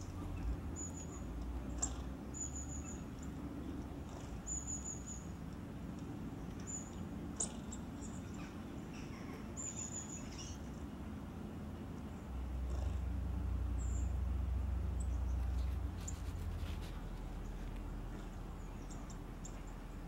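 Short high bird chirps played from a bird video through a tablet's small speaker, coming every second or two, mostly in the first half, over a low steady hum. A louder low rumble swells for about three seconds past the middle.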